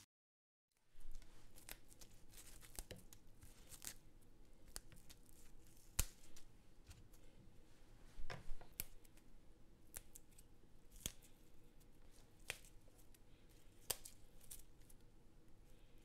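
Fresh mint and parsley leaves being plucked from their stems by hand: irregular small, crisp snaps and soft tearing, some snaps sharper than others. It begins about a second in, after silence.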